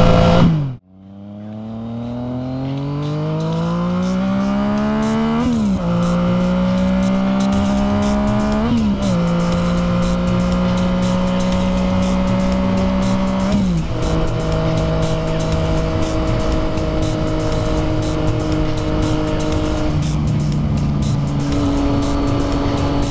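Yamaha FZ-09 inline-triple engine accelerating hard through the gears, its pitch climbing and dropping at three upshifts about six, nine and fourteen seconds in, then holding steady at cruising speed. The sound cuts out briefly less than a second in. Music with a steady hi-hat beat comes in underneath and carries on.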